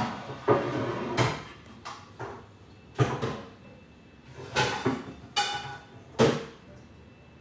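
Dishes clattering as someone washes up: about a dozen sharp, loud clanks and knocks of plates and pans, unevenly spaced, some ringing briefly.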